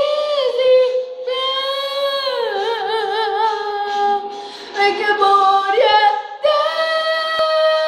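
A young girl singing alone without accompaniment, holding long notes: a falling note with a wobble of vibrato about three seconds in, short breaths, then a long high note held from about six and a half seconds in.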